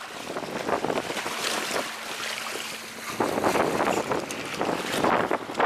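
Wind buffeting the microphone over waves washing against the seawall rocks, gusting louder about three seconds in.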